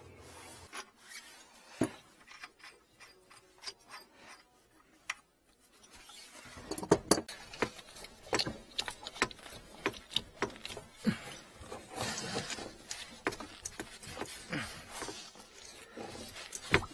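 Scattered clicks and knocks of hands and tools working on a floor-heating water manifold's pipe fittings. They are sparse at first and become busier from about six seconds in.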